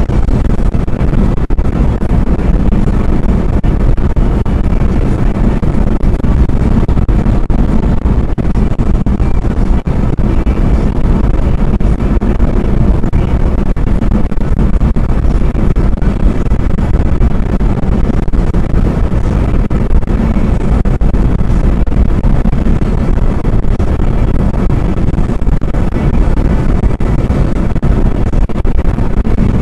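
Loud, steady low rumble of a car cruising at highway speed, heard from inside the cabin: tyre and road noise with wind and engine drone.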